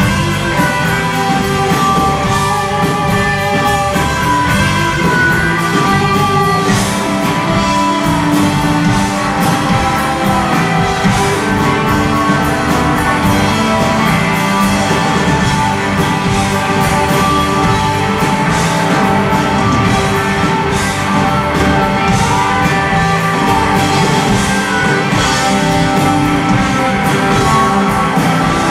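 Rock band playing live through a PA in an instrumental passage: two distorted electric guitars, bass and a drum kit, with keyboards.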